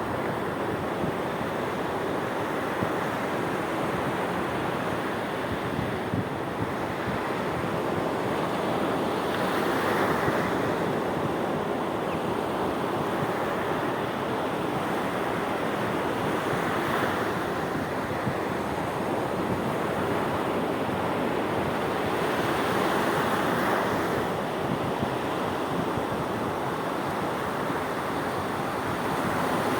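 Sea waves breaking: a continuous wash of surf that swells louder every six or seven seconds as each wave comes in.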